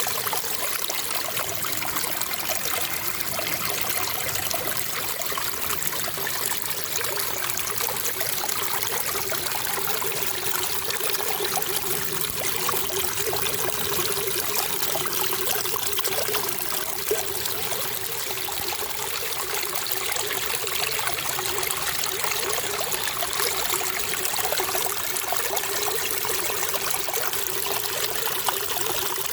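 Running water trickling steadily, an even wash with no breaks or changes.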